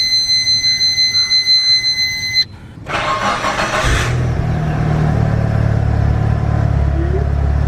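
A steady high-pitched electronic warning tone sounds for about two and a half seconds and stops. Then the Mitsubishi Lancer Evolution VI Tommi Mäkinen Edition's turbocharged 2.0-litre 4G63 four-cylinder cranks on the starter for about a second and catches on a cold start, settling into a steady idle.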